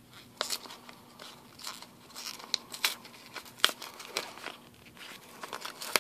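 Wrapping of a small pack of bonus trading cards being torn and crinkled open by hand, with irregular sharp crackles and ticks.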